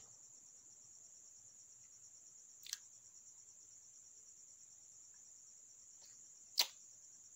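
Dressmaking scissors cutting through folded Ankara cotton fabric, mostly quiet, with two short sharp clicks from the scissors about three and six and a half seconds in. A steady high-pitched whine runs underneath.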